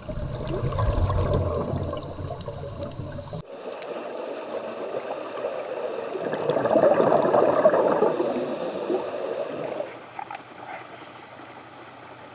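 Underwater bubbling from a scuba diver's exhaled breath, heard through the camera's underwater housing; a low rumble changes abruptly to a rushing, gurgling sound about three seconds in, which swells to its loudest in the middle and fades away near the end.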